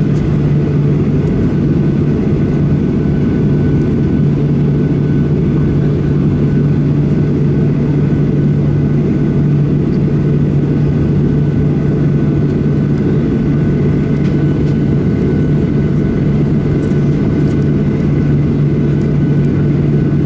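Boeing 737-800's CFM56-7B turbofan engines running at low taxi thrust, heard from inside the cabin over the wing: a steady low hum with a faint higher whine, unchanging throughout.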